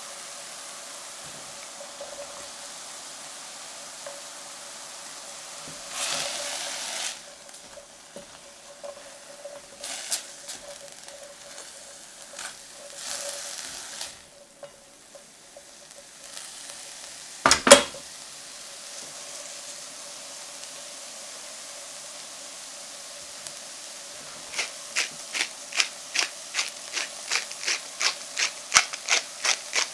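Edamame and chestnut mushrooms sautéing in a stainless steel pan with a low steady sizzle, stirred with a silicone spatula in short spells, with one louder knock a little past the middle. For the last five seconds or so a pepper mill grinds over the pan: a regular run of sharp clicks, two to three a second.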